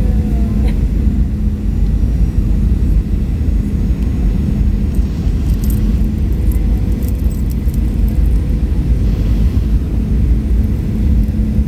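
Steady airliner cabin noise in flight: a continuous low rumble of engines and airflow with a steady hum. A few faint light ticks come about halfway through.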